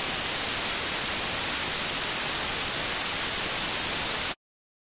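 Steady hiss of static-like white noise, strongest in the treble, that cuts off suddenly about four seconds in.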